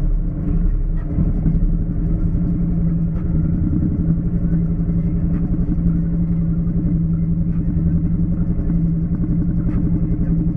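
Off-road vehicle engine running at a steady, even speed with a low rumble, its pitch holding nearly constant.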